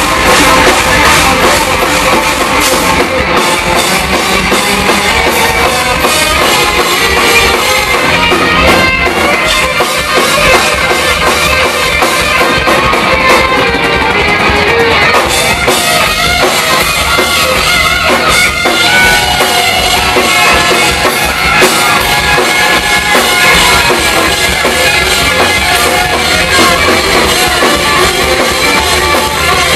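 Live hard rock band playing loud and without a break: electric guitars over a drum kit.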